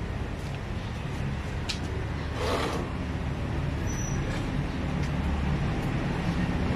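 Steady low rumble of a motor vehicle engine running, with a short hiss about two and a half seconds in.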